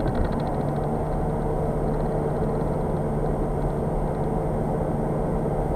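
Skoda Octavia RS 2.0 TDI four-cylinder diesel heard from inside the cabin: the engine note drops as the throttle is lifted at the start, then settles into a steady low drone at light load. Tyre and road noise run under it while cruising.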